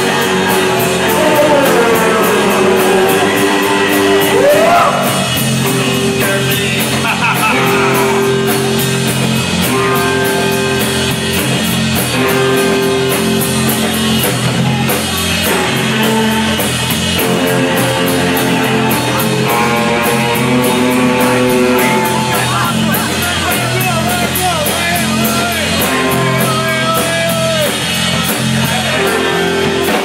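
Live rock band playing loudly: electric guitars over steady drums, with guitar slides in the first few seconds.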